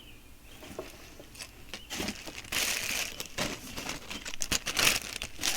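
Plastic packaging crinkling and rustling in irregular bursts as clothing is handled, louder around the middle and again near the end.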